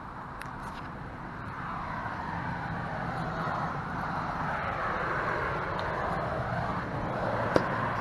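A passing vehicle: its noise swells over a few seconds and then eases off, over a low steady hum. A single sharp click comes near the end.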